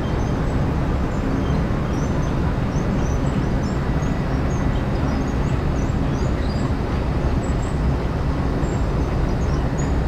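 Steady rumble and rush of churning water in an Intamin river rapids ride's channel, heard from aboard a circular raft.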